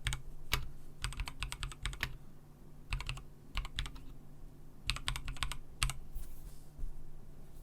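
Typing on a GAS67 mechanical keyboard with Gateron Milky Yellow Pro linear switches and PBT keycaps, the case dampened with foam and the stabilisers holee-modded. The keys clack in quick bursts with short pauses between them, and the typing stops about six seconds in.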